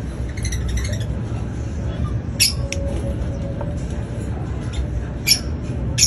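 Fischer's lovebirds giving short, sharp, high chirps: a quick cluster in the first second, then single chirps a few times, over a steady low hum.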